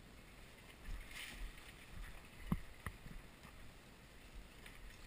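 Rustling and crunching of a person moving over dry leaf litter, with two sharp clicks about a third of a second apart a little past halfway.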